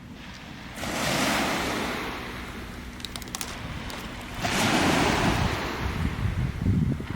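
Waves breaking on a sandy beach: two surges of surf about a second in and about four and a half seconds in, each washing in and slowly fading, over a low rumble, with a few faint clicks.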